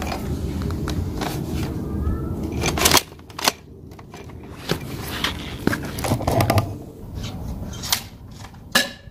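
Plastic toy pump-action airsoft gun being handled: a series of short clicks and rattles from its parts, the loudest about three seconds in, over a steady low rumble during the first three seconds.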